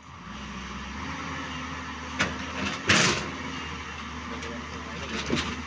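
JCB 205 tracked excavator's diesel engine running under hydraulic load, getting louder just after the start as the boom swings down. A loud scraping rush about three seconds in, with a smaller one just before, as the bucket bites into the soil.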